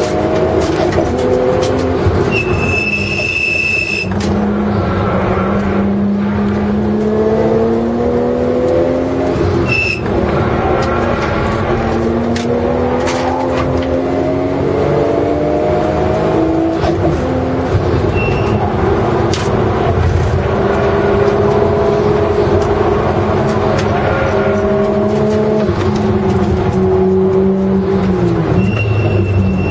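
Race car engine heard from inside the cabin during a fast lap: the engine note climbs through the revs and drops back at each gear change, several times over. A few short high-pitched squeals cut through now and then.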